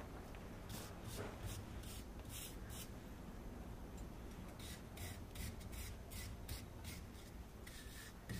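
Hand wire brush scrubbing the muck-caked flail rotor shaft and chain mounts of a muck spreader, in a run of short, irregular strokes, cleaning the mounts so new flail chains can be bolted on.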